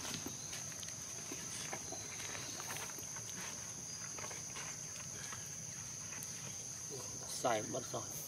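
Steady high-pitched insect chorus, with a short pitched cry that bends up and down about seven and a half seconds in.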